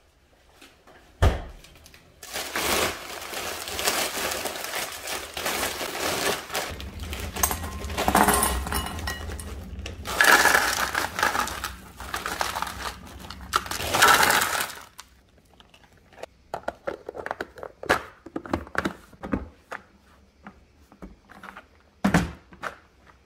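A plastic bag of frozen mixed vegetables crinkling as the hard frozen broccoli, cauliflower and carrot pieces are poured out, rattling and clattering into clear storage containers. After that come scattered clicks and knocks as the containers are lidded and stacked.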